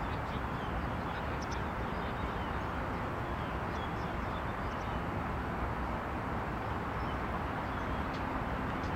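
Steady outdoor background noise at an even level, with a few faint, short, high chirps scattered through it.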